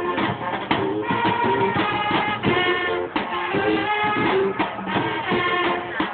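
Music: held melodic notes over frequent short percussion strokes.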